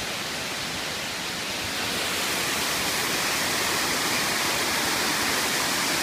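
Water pouring over a stepped waterfall, a steady rushing that grows louder about two seconds in.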